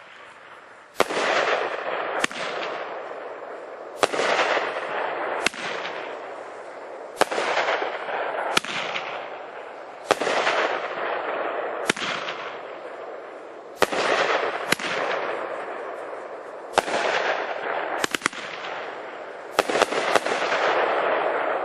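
Multi-shot aerial firework cake, "Dark Horse", firing a string of about fourteen shells one to two seconds apart. Each sharp bang is followed by a hiss that fades over a second or so as the burst spreads.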